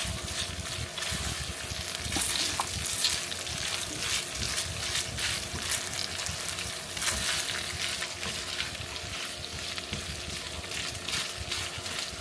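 Vegetables sizzling and crackling as they fry in a pan.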